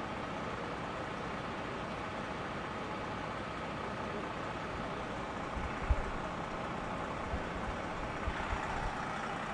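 Large coach bus engine idling steadily, with a few short low thumps from about halfway through.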